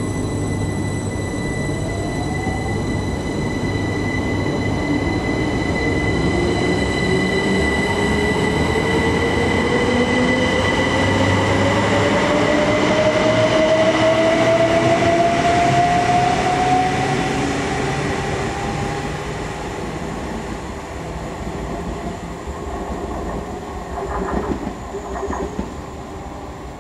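Great Western Railway Class 387 electric multiple unit pulling away along the platform, its traction motors whining in a steadily rising pitch as it gathers speed over a continuous rumble of wheels on rail, fading after the middle. A few knocks near the end.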